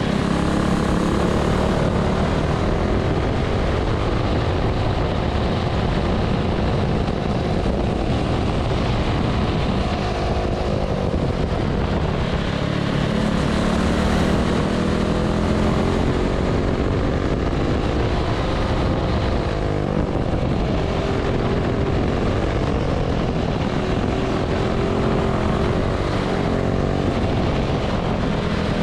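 Predator Ghost 212cc single-cylinder four-stroke kart engine running at racing speed through a hot lap. Its pitch rises and falls as it pulls down the straights and eases through the corners.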